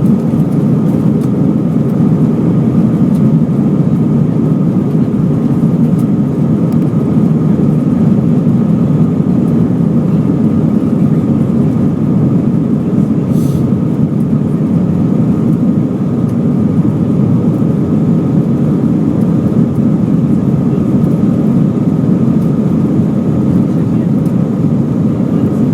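Steady cabin noise of an Airbus A320 with IAE V2500 engines in flight: a loud, unbroken rush of airflow and engine noise, with a faint steady whine above it.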